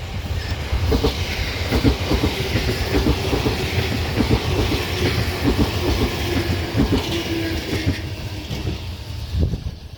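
JR East E655 series 'Nagomi' electric train passing, its wheels clacking over rail joints in quick, repeated groups over a low rumble. The sound drops away shortly before the end.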